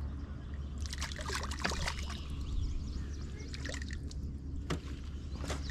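Water splashing and trickling in short clusters, with scattered sharp knocks, over a steady low hum.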